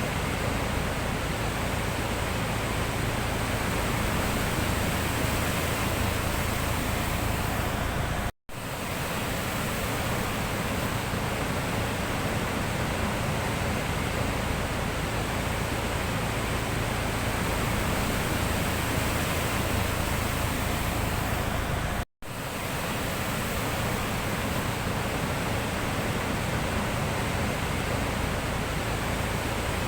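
Sea surf: a steady, even wash of waves on the shore. The sound cuts out for a split second twice, about eight seconds in and again about twenty-two seconds in.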